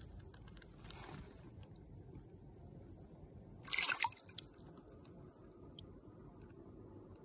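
A zander being released by hand into shallow river water: faint small water sounds, then one short, loud splash about four seconds in as the fish breaks free.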